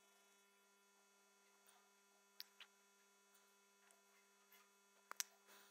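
Near silence with a faint steady hum and a few faint computer mouse clicks: one about two and a half seconds in and a quick pair a little after five seconds.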